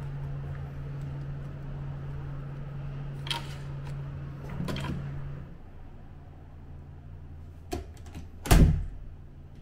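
A few sharp clicks and knocks, then one much louder thump near the end, over a steady low hum that stops about halfway through.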